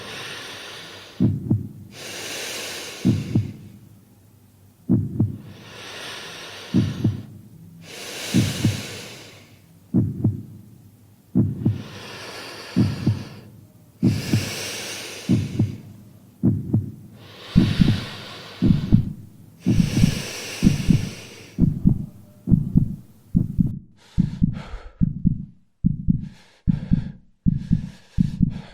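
Suspense sound effect of heavy, slow breathing over a pounding heartbeat. The heartbeat gradually speeds up, and near the end the breaths turn short and quick, like panting.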